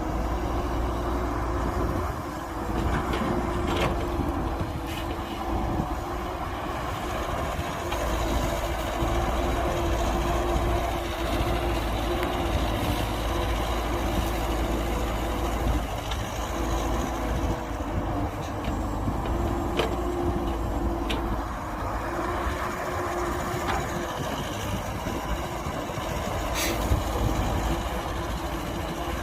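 Heavy diesel earthmoving machinery running steadily, with a few sharp knocks.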